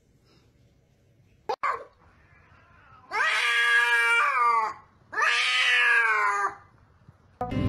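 Orange tabby cat giving two long, drawn-out meows, each about a second and a half, with the pitch falling away at the end of each. A brief click comes a couple of seconds before the first one.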